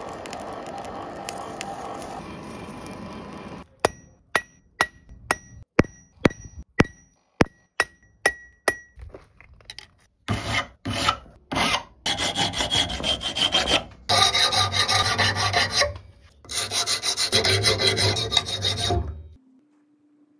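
Steady rush of a charcoal forge fire. This is followed by a run of about fifteen hammer blows, roughly three a second, each with a short metallic ring. Then come several long spells of filing on the steel arrowhead clamped in a vise, stopping about a second before the end.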